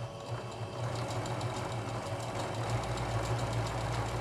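Electric sewing machine stitching an appliqué, its needle going at a fast, even rhythm over a steady motor hum. It is softer for the first second, then picks up to steady stitching.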